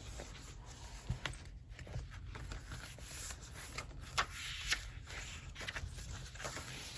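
Paper rustling and light scraping as the pages and paper pockets of a handmade junk journal are handled, with a few soft sharp taps.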